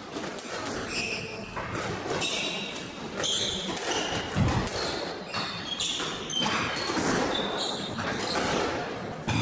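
Squash rally: the ball is struck and smacks off the court walls again and again, with short high squeaks of players' shoes on the hardwood floor. There is one heavy thud about four and a half seconds in.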